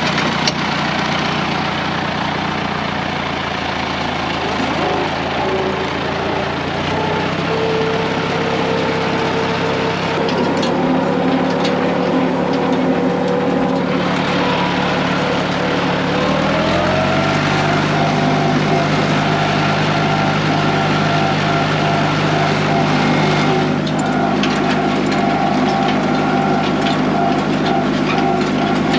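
International Harvester 574's 239 cubic inch four-cylinder diesel engine running steadily under load while pulling a hay rake. The engine note steps up about seven seconds in and rises again a little past halfway, then holds steady.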